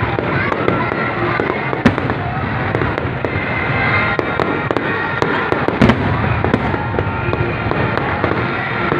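Aerial fireworks going off: many sharp bangs and pops over continuous crackling, with one especially loud bang about six seconds in.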